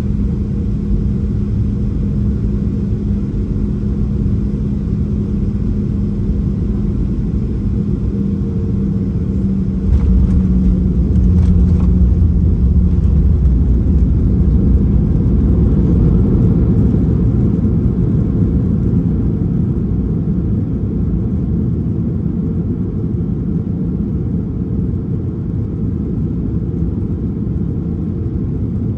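Inside the cabin of a Boeing 737-800 with CFM56-7B engines: a steady engine hum with a held tone on final approach, then about ten seconds in a few sharp knocks of touchdown and a louder low rumble as the jet slows on the runway, easing off gradually toward the end.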